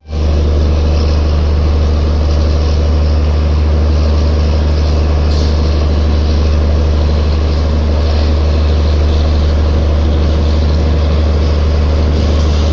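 Diesel engine of an ICF DEMU power car running under power as the train pulls away from the station, a loud, steady deep drone with no change in pitch.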